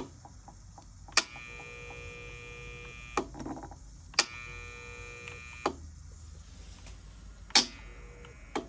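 Breville 920XL inlet solenoid valve buzzing loudly with a steady electrical hum, the sign of a faulty solenoid that needs replacing. Several sharp clicks break in across it.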